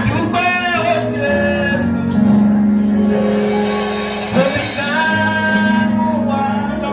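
Gospel music: a voice sings long, wavering held notes over steady instrumental backing, in two phrases with a short break about four and a half seconds in.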